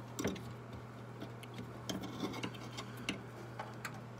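Scattered light clicks and taps of small hand tools and metal parts being handled, over a steady low hum.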